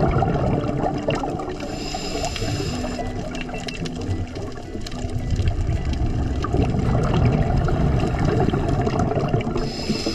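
Underwater sound of a scuba diver breathing on a regulator: a continuous rush and bubbling of exhaled bubbles, with a hiss of inhalation through the regulator about two seconds in and again near the end.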